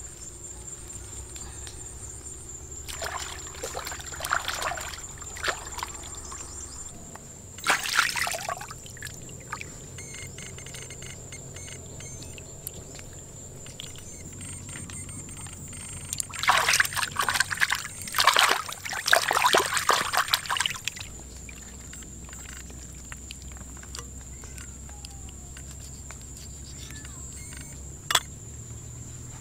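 Water poured and sloshed in several irregular bursts, the longest and loudest about two-thirds of the way through, with one sharp knock near the end. A steady high-pitched insect drone runs underneath.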